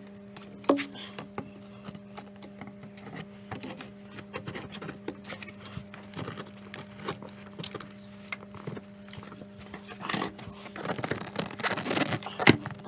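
Scattered knocks, clicks and scrapes from handling wood and tools at a workbench, busiest and loudest near the end with one sharp knock, over a steady low electrical hum.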